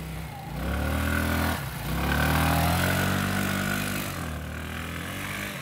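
Yamaha scooter engine revved hard twice, rising in pitch each time, as the rear wheel spins and slides across the grass. It then falls back toward idle near the end.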